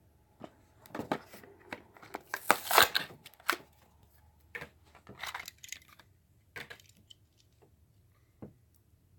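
Toy car packaging being torn and crinkled open by hand in irregular rustling bursts, loudest about two and a half to three seconds in, followed by a few scattered clicks of handling.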